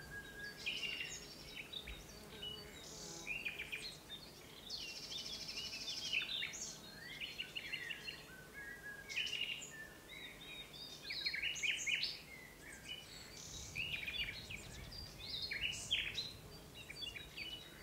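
Several small birds chirping and trilling, many short high calls overlapping one another.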